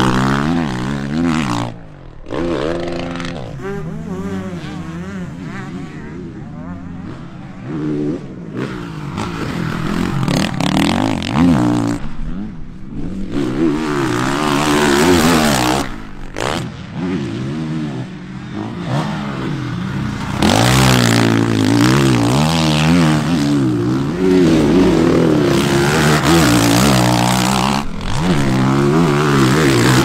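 Honda CRF450 motocross bike's single-cylinder four-stroke engine at full throttle, revving up and dropping off again and again as it is ridden through jumps and corners.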